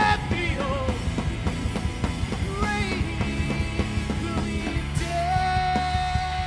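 Live rock band playing: electric guitar and drum kit, with a singing voice over them and a long held note that comes in about five seconds in.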